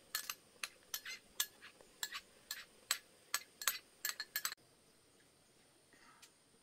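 A spoon clinking and scraping against a small bowl as a child eats, a quick series of sharp taps several times a second that stops abruptly about four and a half seconds in.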